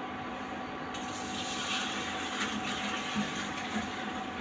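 Milk pouring from a steel pot into an earthenware pot, a steady splashing pour that grows louder about a second in.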